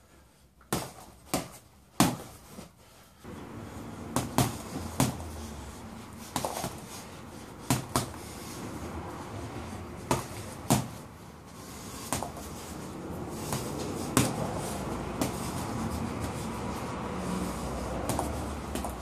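Boxing gloves punching a reflex ball on a cord: irregular sharp smacks, often two in quick succession. A steady background noise comes in about three seconds in.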